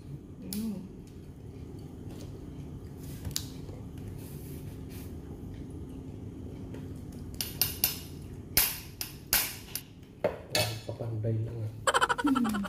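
Steamed mud crab shell being cracked and picked apart by hand, with a metal spoon clinking and scraping against the shell: scattered sharp clicks and cracks, few at first and coming thick and fast in the second half, ending in a quick rattling crackle. A short 'mm' near the end.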